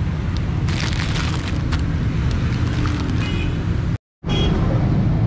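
Plastic packaging crinkling and rustling as bagged toy guns are handled, over a steady low rumble. The sound drops out for a split second about four seconds in.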